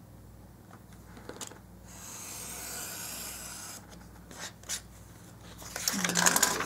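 Paper cut-outs being handled and rubbed on the work surface: a steady scraping rasp for a couple of seconds, a few light taps, then louder rustling near the end.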